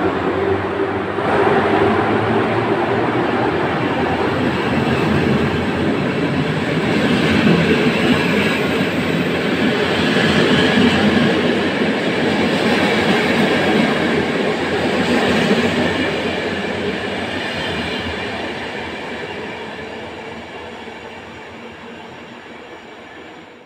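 EP07 electric locomotive and its passenger coaches departing past the platform: a steady rumble of wheels on the rails as the train goes by, fading away over the last several seconds as it leaves.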